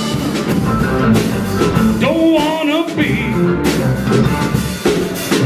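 Rock band music: drums and electric guitar playing a country-tinged rock-and-roll song, with bending melodic notes, between sung lines.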